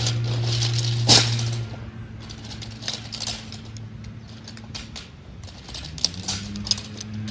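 A series of light clicks and clatters, the loudest about a second in, over a low steady hum that fades out after about a second and a half and comes back near the end.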